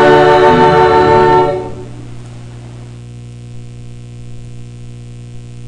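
A choir singing a hymn, holding its final chord until it ends about a second and a half in, leaving a steady electrical mains hum.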